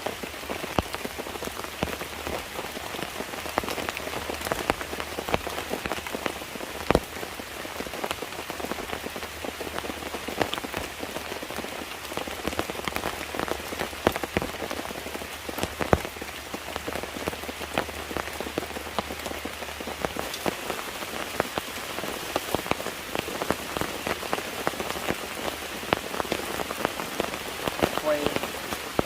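Steady rain falling, made up of many separate drop hits, with a few louder single drops about 7 and 16 seconds in.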